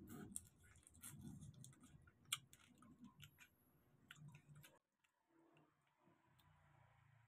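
Faint eating sounds: scattered small clicks and crackles of whole prawns being peeled by hand and chewed, with one sharper click about two seconds in, falling nearly silent about two-thirds of the way through.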